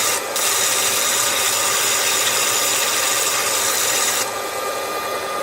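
Electric cloth cutter's motor running with its built-in sharpening stone pressed against the spinning 25 mm circular blade, giving a steady grinding hiss over the motor's whine: the new blade is being sharpened. The grinding stops a little after four seconds in while the motor keeps running.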